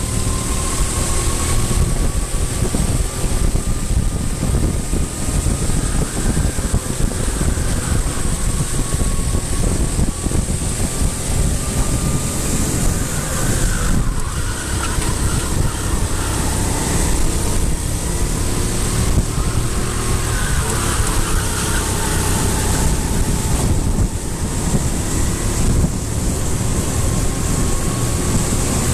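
Vehicle engines running steadily, with a faint tone that drifts slowly up and down in pitch.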